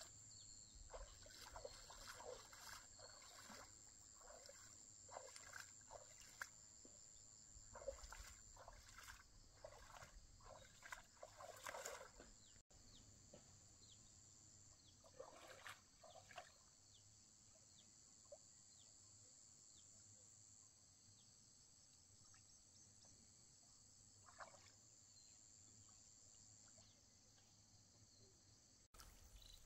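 Faint outdoor ambience: a steady high-pitched insect chorus, with scattered small splashes and knocks that crowd the first half and thin out after about halfway.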